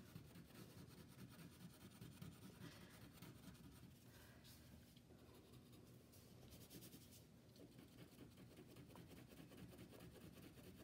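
Faint scratching of a wax crayon colouring lightly over another crayon layer on paper, in quick repeated strokes.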